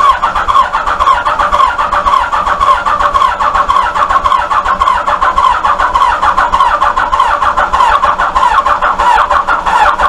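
Electric starter cranking the 1988 Kawasaki ZX-10's inline-four engine at length with a fast, even chugging, never catching: the fuel tap is turned off, so the carburettors get no fuel.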